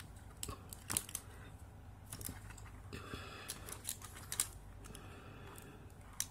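Small clicks, scrapes and crinkles as a phone's lithium battery pack is pried apart by hand, its metal casing and tape wrapping pulled off to reach the protection circuit board.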